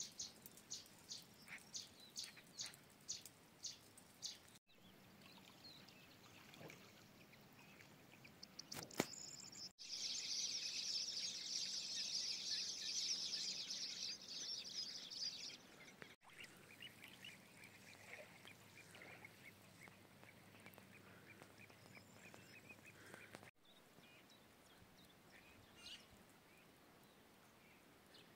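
Wild birds calling in several short clips: quick repeated high calls in the first few seconds, a loud dense chorus from about ten to fifteen seconds in, then a string of fainter calls.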